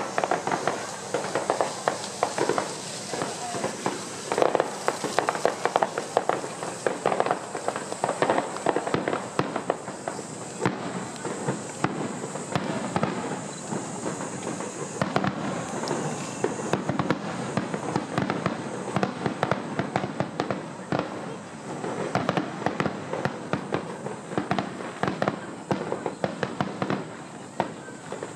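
Aerial fireworks display: shells bursting one after another, with many sharp pops and bangs in quick succession.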